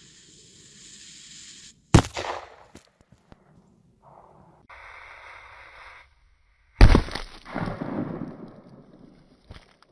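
Dum Bum firecracker's fuse hissing, then a sharp bang as it blows apart the ballistic gel block about two seconds in. A second hiss follows, then a second, louder bang near seven seconds with a longer trailing rumble.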